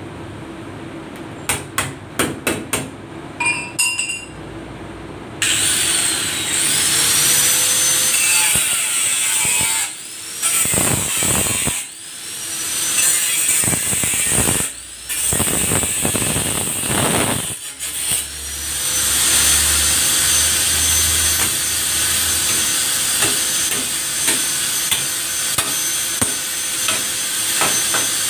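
A few sharp metallic knocks, then an angle grinder starts about five seconds in and cuts into a bus's sheet-steel fender. Its high whine drops out briefly several times before running steadily under load.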